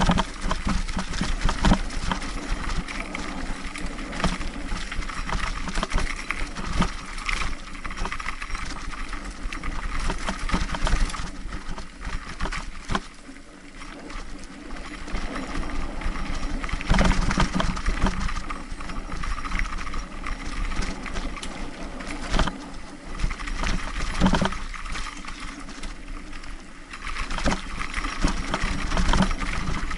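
Mountain bike rolling over a bumpy dirt trail: continuous close rattling and clatter from the bike as it jolts over the ground, easing to a quieter, smoother stretch about halfway through and again near the end.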